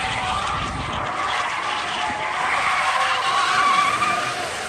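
Rear tyres of a U-Haul rental pickup truck squealing as it spins a smoky burnout. The wavering squeal over a rushing skid noise swells to its loudest near the end.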